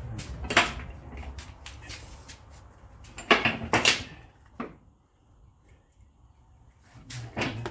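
Several sharp clanks and knocks of hand tools and car parts being handled during strut removal, over a low background hum that fades out midway.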